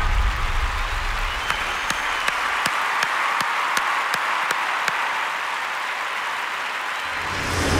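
Applause from an audience after a dance performance, with a few sharp single claps standing out in the middle.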